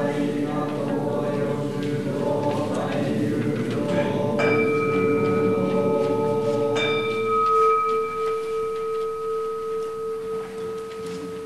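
A group chanting a prayer in Tibetan, ending about four seconds in as a bowl bell is struck; a second strike follows about two seconds later and the bell rings on, its tone wavering as it slowly fades.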